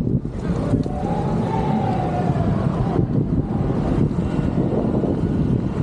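Wind buffeting the microphone of a camera riding on a moving bicycle: a loud, steady, rough low rumble, with a faint wavering tone from about half a second to two and a half seconds in.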